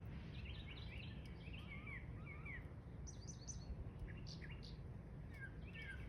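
Small birds chirping: a quick run of short, falling chirps for the first two and a half seconds, then scattered higher chirps, over a steady low background rumble.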